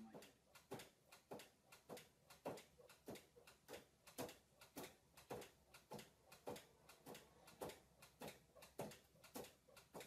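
A cat batting over and over at a pet-door flap, which knocks in its frame with quiet, sharp clacks in a steady rhythm a little under twice a second.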